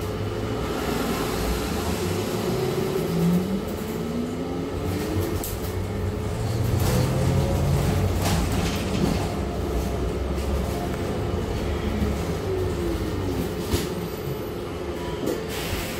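Inside a city bus under way: low rumble of the engine and road, with a drivetrain whine that rises in pitch as the bus speeds up a few seconds in and falls again as it slows near the end, and scattered rattles from the interior.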